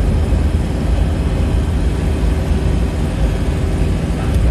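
Inside the cabin of an Isuzu Panther New Hi Grade diesel cruising at highway speed: a steady low rumble of engine, tyres and wind.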